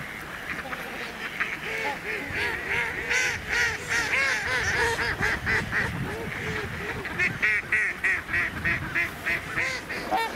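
A flock of waterfowl calling: many short calls in quick succession, overlapping, thickest in the middle and again in the last few seconds.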